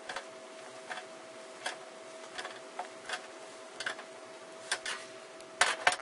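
Brass motherboard standoff being driven into a steel case plate with a nut driver: sharp metal clicks, irregular and roughly two a second, as the driver is turned and regripped, loudest in a quick cluster near the end when the standoff seats. A faint steady hum runs underneath.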